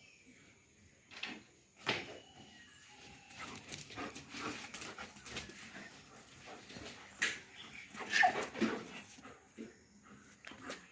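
German shepherd dog whining and giving a few short yelps while playing. The loudest yelps come about seven and eight seconds in, with a sharp knock about two seconds in.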